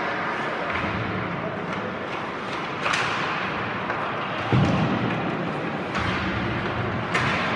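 Ice hockey play echoing in an arena: a few sharp knocks of sticks and puck, and a heavy thud against the boards about four and a half seconds in, the loudest sound.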